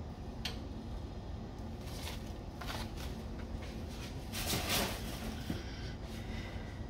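A few short rustles and knocks of handling right next to the microphone, the loudest and longest about four and a half seconds in, over a steady low hum.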